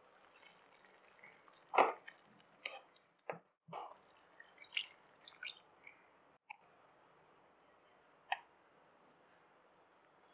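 Cooking sounds at a pan: a glass pan lid clinks as it is lifted off and set down, then liquid is poured and drips into the simmering pan, with a few scattered sharp knocks, the loudest about two seconds in.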